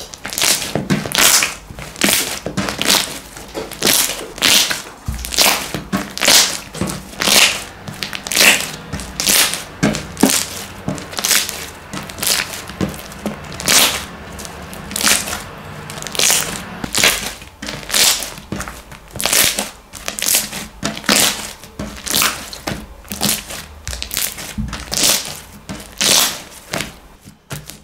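Homemade slime being squeezed and worked, giving a long run of sharp crackling pops, roughly one or two a second.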